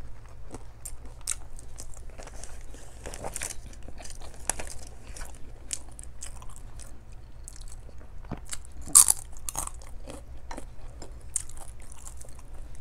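Close-up wet chewing and mouth sounds of a person eating rice and mackerel in coconut stew by hand: a stream of small smacks and clicks, with one sharper, louder click about nine seconds in.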